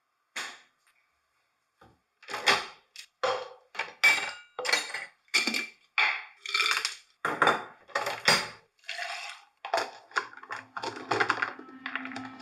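A quick run of kitchen clinks and clatters while making an iced coffee: coffee capsules rattling in a glass jar, and glass and a plastic cup knocking on the counter. There is one knock, a short pause, then about twenty sharp clinks in quick succession.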